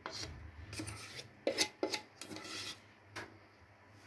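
Spatula scraping the last cake batter from the sides of a mixing bowl into a baking pan: a run of short, irregular scrapes, a few sharper ones about one and a half seconds in.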